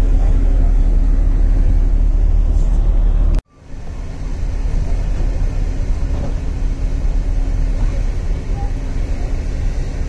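Steady rumble and hum of a ferry's engines heard from the open deck. About three and a half seconds in, the sound cuts out for a moment and comes back with less of the deep rumble.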